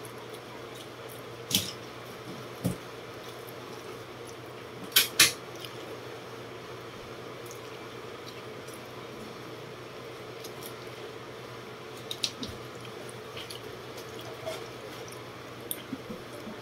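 Eating sounds from a person eating fish and rice by hand: a few short, wet mouth smacks and clicks, the loudest two close together about five seconds in, over a steady low hum.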